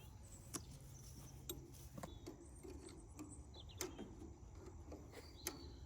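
Faint, scattered metallic clicks and taps of spanners on a shear bolt and nut being fitted to a round baler's drive, about five sharp ticks spread over a few seconds against a low steady background.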